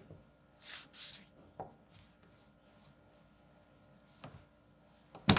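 Pen scratching on paper in a few short strokes as a signature is written, then a single sharp knock near the end.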